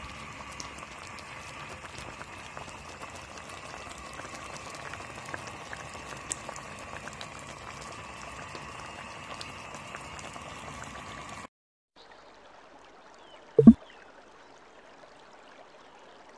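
A pot of miswa noodle soup with sponge gourd and pork simmering: a steady bubbling hiss with many small pops. It cuts off about eleven seconds in, and about two seconds later there is one short, loud sound effect.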